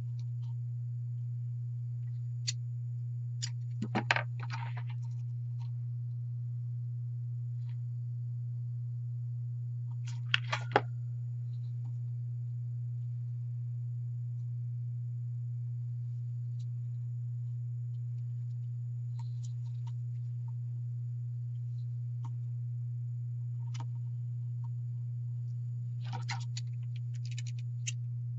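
A steady low hum with a few light clicks and rustles from hands working jute twine onto burlap. Near the end there are a few short snips as scissors cut the twine.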